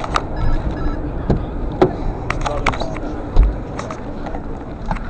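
Crowd chatter in a large hall, with scattered clicks and knocks from someone climbing into a parked car's seat and handling the interior, and a dull thump about three and a half seconds in.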